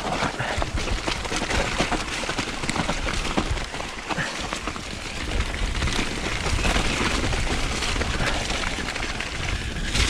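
Mountain bike descending a steep dirt trail: a steady noisy rush of riding noise with frequent small knocks and rattles from the bike.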